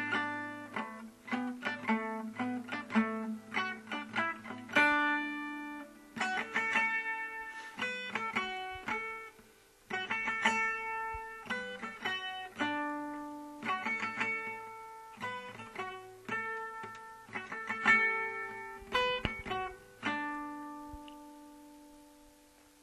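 Background music of plucked guitar notes, played as a melody and fading out near the end.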